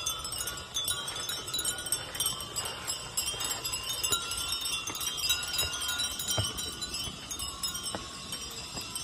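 Wind chimes tinkling continuously, many high thin ringing tones overlapping, with a few faint knocks.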